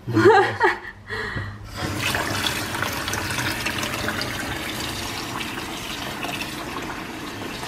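Kitchen tap running steadily into a bowl of seitan dough in a steel sink as hands knead it under the stream, washing out the starch. The water comes on about two seconds in, after a brief voice at the start.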